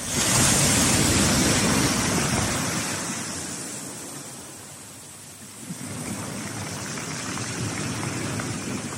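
Sea waves breaking on the shore. One wave crashes at the start and washes out over several seconds. Another comes in just past halfway.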